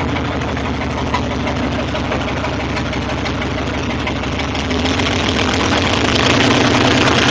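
Truck engine idling steadily, getting a little louder about five seconds in.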